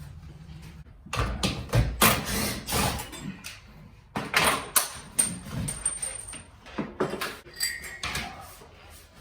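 Steel garage door hardware clanking and rattling as it is handled and taken down: an irregular run of knocks, with a brief high metallic ring near the middle.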